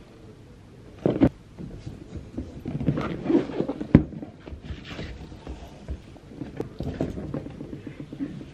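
Silk ribbon being wrapped and tied around a cardboard gift box: rustling and sliding of the ribbon, with light knocks against the box. There is a pair of knocks about a second in and a sharp one at about four seconds.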